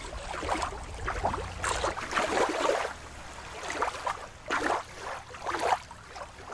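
Water lapping and splashing in small, irregular washes. A low rumble sits under it for about the first two seconds, then drops away.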